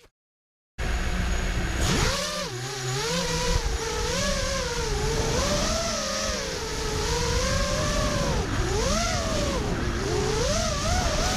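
Five-inch FPV racing quadcopter's brushless motors and propellers whining, the pitch swooping up and down constantly with the throttle. It starts after about a second of silence.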